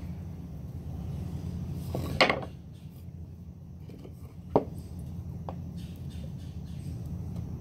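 Wooden boards knocking as they are handled and fitted together: a few short, sharp knocks, the loudest about two seconds in and another sharp one more than four seconds in, over a steady low hum.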